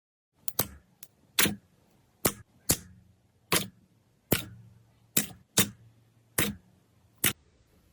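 Slime being pressed or poked, giving about a dozen sharp pops or clicks at irregular intervals.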